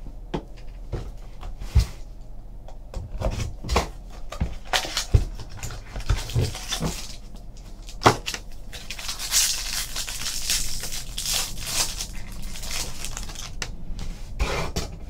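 Trading cards and a foil pack being handled on a tabletop: scattered taps and clicks, then a few seconds of crinkling about nine seconds in as the pack wrapper is torn open.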